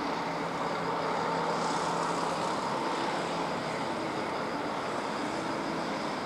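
Steady background hum and hiss of distant machinery, with faint held tones that come and go.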